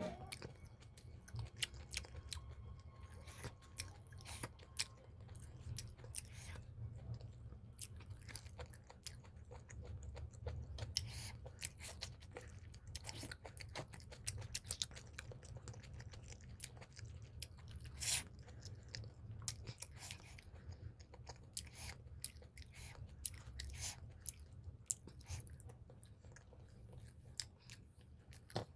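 Close-miked chewing of chicken liver, gizzard and paratha: wet mouth clicks, smacks and occasional crunches at an irregular pace, over a steady low rumble.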